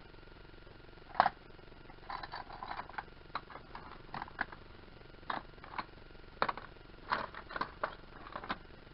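Loose metal wrenches and sockets clinking and clattering in a tool tray as a gloved hand rummages through it: an irregular string of sharp clanks, the loudest one about a second in.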